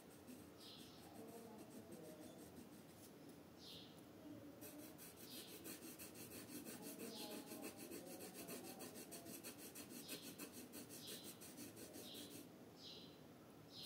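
Red colored pencil scratching back and forth on paper as a drawing is shaded in, faint, with short scratchy strokes about once a second.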